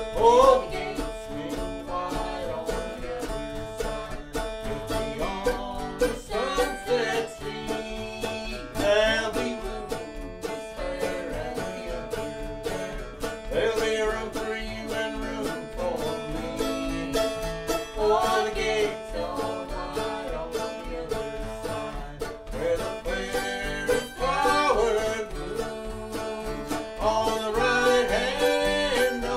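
Mandolin and acoustic guitar playing a bluegrass-style tune together.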